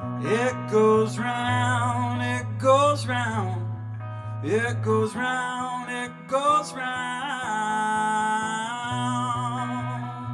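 Solo male singer with a hollow-body electric guitar: ringing, sustained guitar chords under a sung melody, which breaks off briefly midway and ends on a long held note with vibrato.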